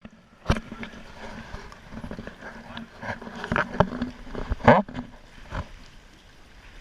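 Irregular knocks and clicks, a dozen or so at uneven spacing, two of them louder, about half a second in and near the end.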